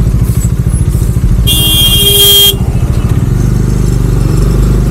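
Motorcycle engine running steadily under way, with a vehicle horn sounding once for about a second near the middle.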